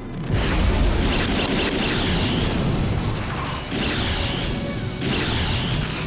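Animated sci-fi battle sound effects: a loud, steady roar of mobile-suit thrusters breaks in suddenly, with three swooping sweeps about two, four and five seconds in, and music underneath.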